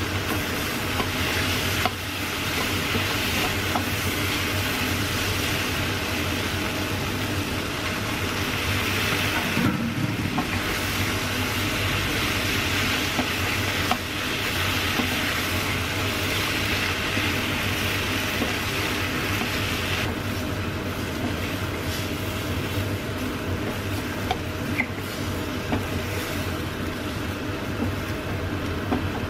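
Sausage, vegetables and ketchup sizzling in a frying pan, stirred and tossed with a wooden spatula, with spaghetti mixed in partway through. Occasional sharp clicks of the spatula against the pan.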